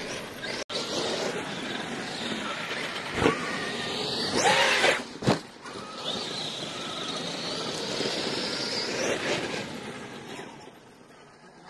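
Brushless electric motor of a large RC monster truck whining as it speeds up and slows down, with a loud rush of noise just before five seconds in and two sharp knocks, about three and five seconds in. The whine fades away near the end.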